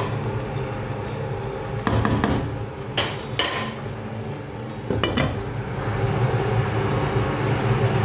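A wooden spatula stirring and scraping sautéed bottle gourd and chicken in a pan, with a few sharp knocks and clinks of cookware about two, three and five seconds in. Under it runs a steady low hum.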